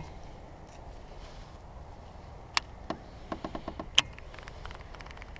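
Clicks from a baitcasting rod and reel being handled: a sharp click at the start, two more clicks and a quick run of light ticks about three seconds in, and another sharp click about four seconds in, over steady low background noise.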